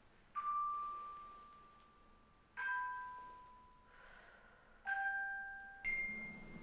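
Bell-like chime notes struck one at a time, four in all, roughly two seconds apart, each ringing out and slowly fading. Some strikes sound two pitches together, the last note is higher, and a low hum comes in under it.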